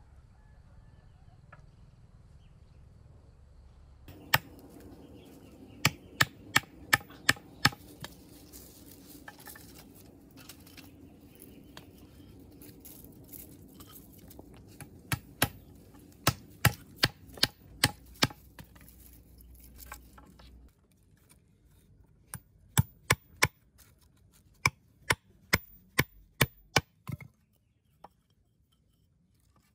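Sharp strikes of a tool on wood in quick runs of five to seven blows, about three a second, with pauses between the runs.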